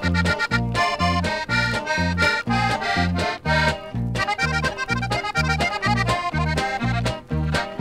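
Accordion-led instrumental introduction to a corrido from a 1967 record, with the accordion playing the melody over a steady bass beat about twice a second.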